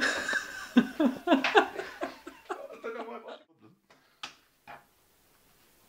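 Laughter in short broken bursts, dying away after about three seconds. Then near silence with two faint clicks.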